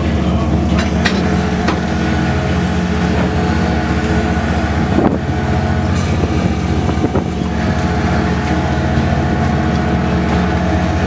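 Boat engine running steadily, a low even drone, with a few sharp knocks of gear against metal.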